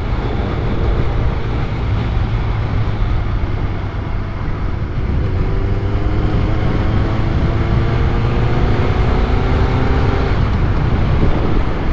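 Honda CBR1100XX Blackbird's inline-four engine running on the road, with a steady low wind rumble on the helmet microphone. The engine note climbs slowly from about four seconds in to about ten seconds in as the bike pulls harder.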